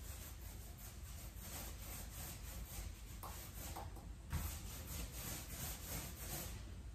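Paint roller on a pole rolled back and forth over a wall, a faint, quick rubbing hiss with each stroke. A single knock about four seconds in.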